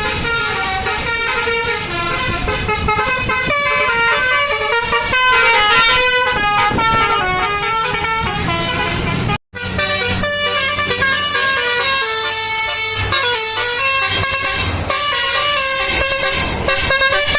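Basuri 'telolet' multi-tone bus horns playing quick stepped melodies of several notes over a running bus engine. About nine seconds in, the sound cuts out for an instant and another horn tune begins.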